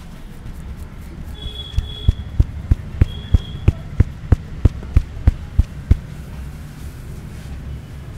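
A barber's hands striking a man's head in a quick, even run of about fourteen thumps, some three a second, as part of a head massage; the strikes then stop.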